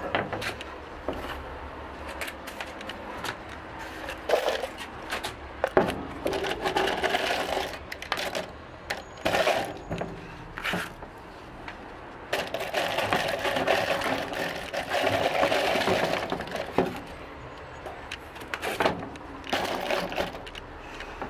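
Metal screws rattling and clinking in a plastic tub as it is handled and shaken, with irregular clicks and knocks and a longer stretch of continuous rattling in the middle.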